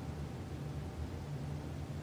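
Faint, low held bass notes of a bowed-string background score, with no other sound.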